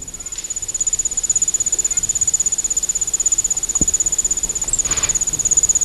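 Crickets chirping: a steady, high, rapidly pulsing trill of about ten pulses a second. It is the stock comedy sound effect for an awkward silence when no answer comes.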